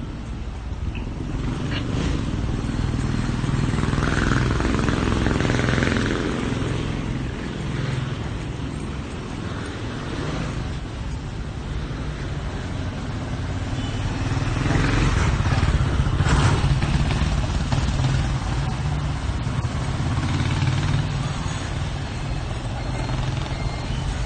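Night street noise: a steady low rumble, with a few brief louder swells of noise.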